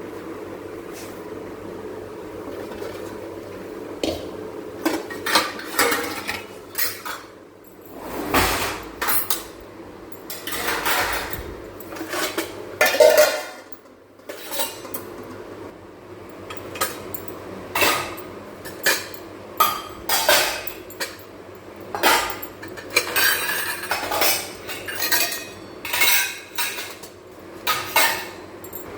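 Utensils being washed by hand: pots, plates and cutlery clinking and scraping against one another at an irregular pace, the clatter starting about four seconds in after a steady background noise.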